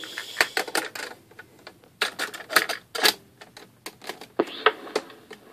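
Irregular mechanical clicks and clacks of a talking book cassette player being handled: a cassette going into the deck and its piano-key transport buttons being pressed. The loudest clacks come about two to three seconds in, with another cluster near the end.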